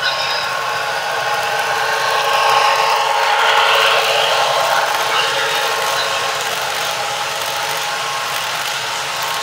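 Broadway Limited PRR GG1 model electric locomotive and its passenger cars running fast on model track: a steady mechanical whirring and rattling of motor, gearing and wheels on the rails, loudest about two to four seconds in as the cars pass close.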